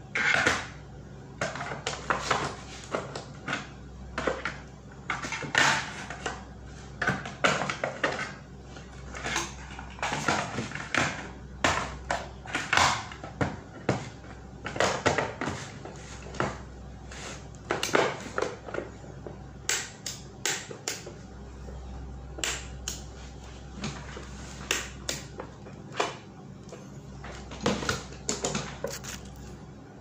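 Plastic electrical enclosure being handled and fitted together on a desk: irregular clicks, knocks and scrapes of plastic parts, over a steady low hum.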